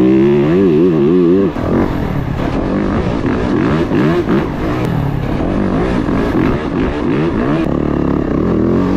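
A 2023 Yamaha YZ450F's single-cylinder four-stroke engine on its stock exhaust, being ridden. The engine note rises and falls quickly with the throttle, dips briefly about a second and a half in, then keeps rising and falling through the corners.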